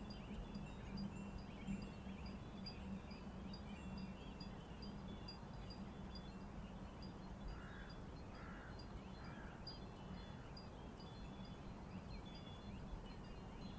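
Many small Japanese iron wind bells on thin metal rods tinkling faintly and irregularly in a light breeze, scattered high rings over a low steady hum, with three short chirps about eight to nine seconds in.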